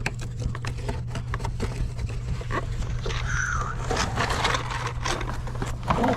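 Irregular scraping and clicking of parts being handled, over a steady low hum.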